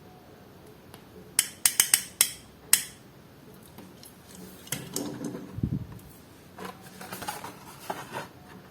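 Toy car blister packaging being handled and opened: a quick run of sharp plastic clicks and snaps about a second and a half in, then rustling with one dull thump, and more crinkling and clicking near the end.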